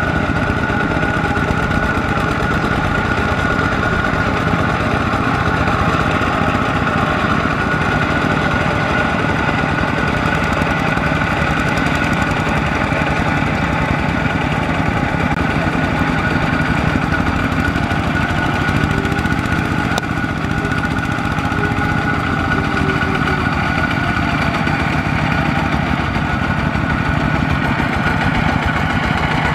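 Kubota ZT120 single-cylinder diesel engine of a two-wheel walking tractor running steadily with a rapid, even beat. It is under load, pulling a trailer as its cage wheels churn through mud and water.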